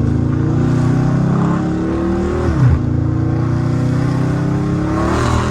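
Dodge Charger Scat Pack's 392 (6.4-litre) V8 accelerating hard. The engine pitch climbs, falls sharply at an upshift about two and a half seconds in, then climbs again and falls at another shift near the end.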